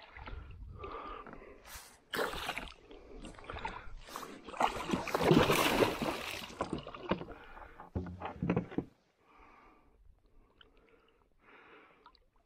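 A hooked muskellunge thrashing and splashing at the surface right beside a kayak, in irregular bursts with the heaviest splashing about five to six seconds in, then dying down.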